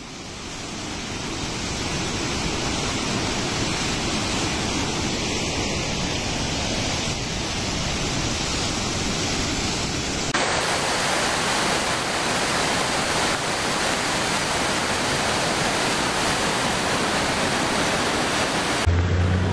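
Floodwater rushing through a swollen river and torrent: a dense, steady rushing noise that fades in at the start, gets louder and brighter abruptly about ten seconds in, and changes again near the end.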